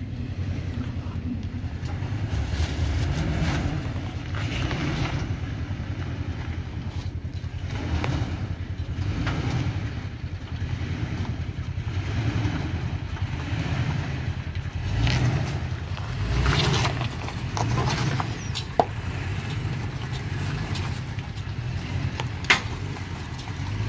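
Toyota Tacoma pickup's engine running at low revs as the truck crawls over rock ledges, with tyres crunching and grinding on the rock. Two sharp knocks stand out, one a little past two-thirds of the way through and one near the end.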